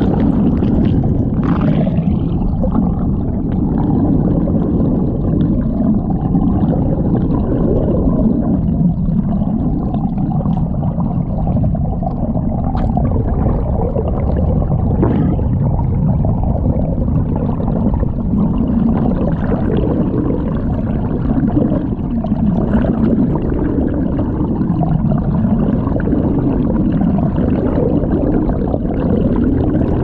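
Water rushing past an underwater camera towed at about 3 mph: a steady, loud low rumble with a slowly wavering hum in it.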